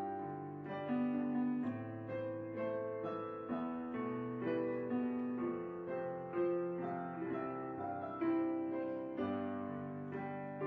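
Background piano music, notes and chords struck at a slow, even pace.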